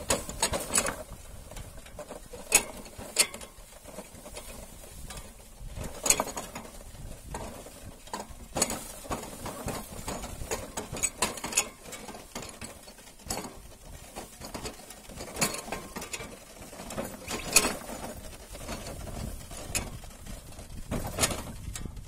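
Wooden bullock cart rolling along a dirt track: its spoked wooden wheels and wooden frame creak and knock irregularly, with sharp clicks every second or two and a few louder knocks.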